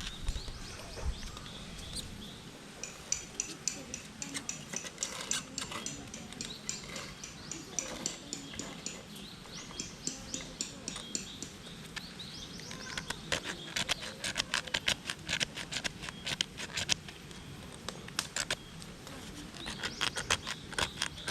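A knife blade scraping a magnesium fire-starter block in quick, repeated short strokes, shaving off a pile of magnesium as tinder for a campfire. The strokes come in dense flurries, and a high, evenly spaced chirping runs in the background for several seconds.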